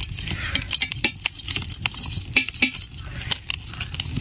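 Long metal tongs clicking and scraping against a pig's trotter and the firewood as it is turned and singed over an open wood fire, in many short irregular clinks over a low steady rumble of the fire.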